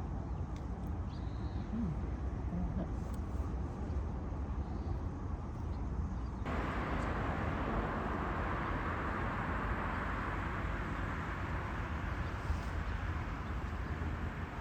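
Steady outdoor background noise with a low rumble; about six and a half seconds in it cuts abruptly to a brighter, louder hiss.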